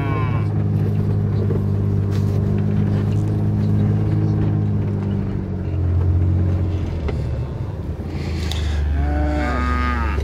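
Beef cattle mooing: one moo trails off at the start and another comes near the end. Under them runs the steady low hum of an idling utility vehicle engine.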